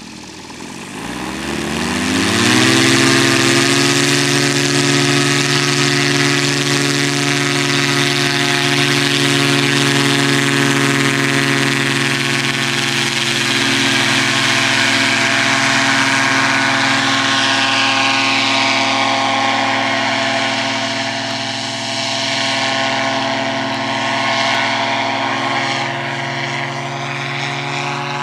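Tandem paramotor trike's engine and caged propeller revving up from low speed to full power over the first two to three seconds, then running steadily at full throttle for the takeoff run and climb. In the second half the upper tones sweep and shift as the trike climbs past overhead.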